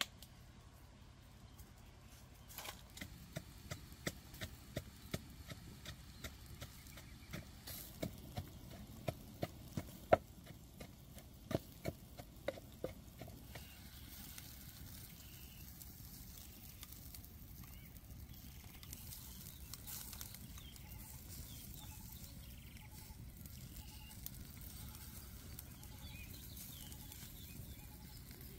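A run of sharp knocks or taps, one to two a second, starting about two and a half seconds in and stopping about halfway through, the loudest near the middle of the run. After that, a steady soft hiss with faint crackles.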